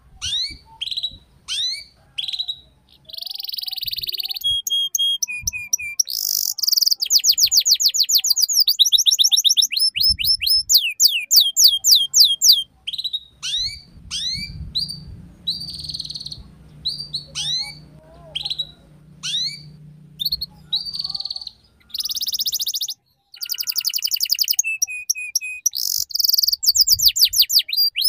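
Domestic canary singing: fast trills of repeated sweeping notes with buzzy rolls in between, in the chattering 'ngeriwik' style used as a master song for teaching young canaries.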